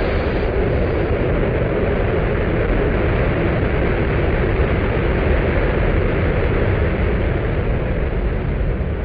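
Steady, loud, rumbling roar of a World Trade Center tower collapsing as its debris and dust cloud rolls over the street, with no separate impacts standing out.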